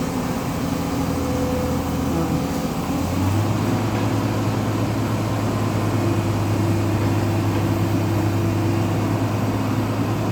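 Heavy diesel engine of working machinery running steadily, its pitch and loudness stepping up a little about three seconds in as it is revved.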